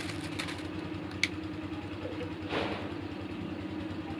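A motor running steadily with an even low hum, with plastic wrap being handled over it: a sharp click about a second in and a short rustle about two and a half seconds in.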